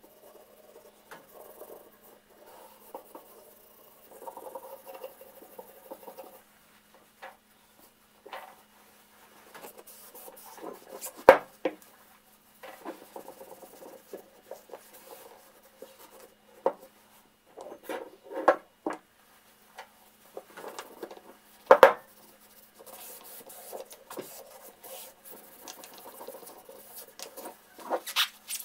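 Terry-cloth towel rubbing over the metal sweep of a bit brace as it is wiped down, in on-and-off strokes with handling clicks. Two sharp knocks, about a third and three quarters of the way through, are the loudest sounds.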